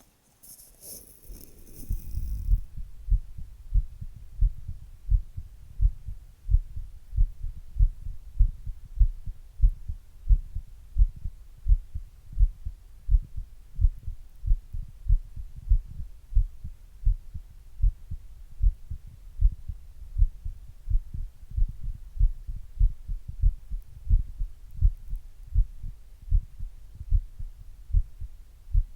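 A person's heartbeat picked up through an earbud microphone held in a glass against the chest: steady deep lub-dub thumps, a little faster than one a second. It opens with about two seconds of rustling handling noise before the beat comes through.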